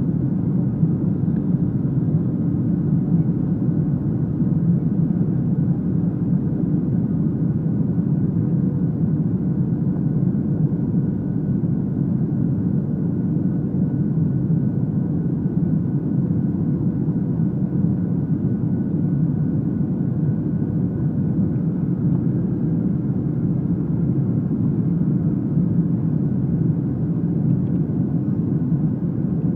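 Steady cabin rumble of a Boeing 737-300 in flight on approach, its CFM56-3 turbofan engines and the airflow heard from a window seat inside the cabin, with a faint steady hum over the low noise.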